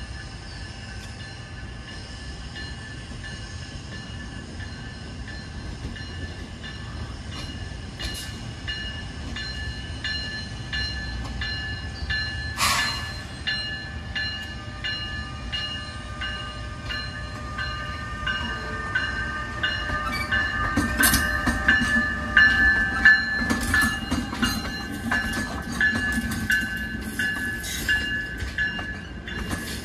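NJ Transit ALP-46A electric locomotive hauling bilevel coaches past at low speed: a steady whine that grows louder as the locomotive draws level. One sharp clank comes about halfway through, and in the last third there is a low rumble with rapid clicks of wheels over the rail joints.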